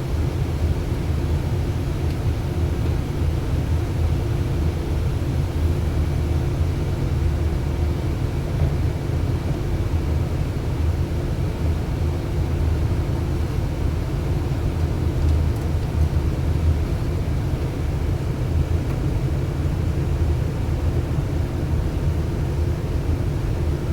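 A 3-ton HVAC air handling unit running: a steady low hum and drone that does not change, with a faint constant tone above it.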